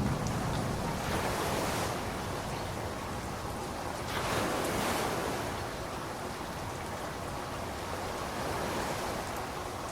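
Ocean surf washing on a beach, swelling about a second in and again about four seconds in, as the last of a thunder rumble dies away at the start.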